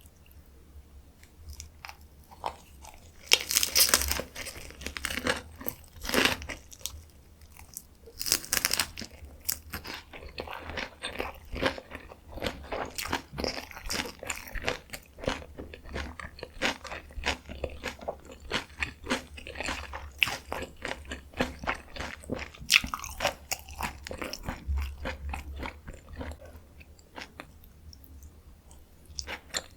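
Close-miked chewing and biting of dakgalbi, spicy stir-fried chicken: wet, clicky mouth sounds throughout, with louder crunchy bites about 4, 6 and 8 seconds in and again near 23 seconds.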